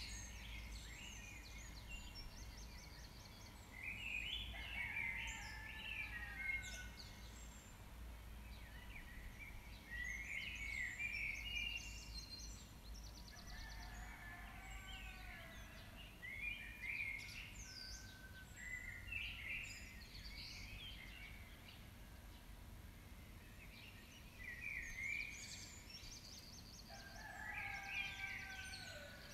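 Songbirds singing in bursts of chirps, whistled glides and fast trills every few seconds, over a faint low rumble.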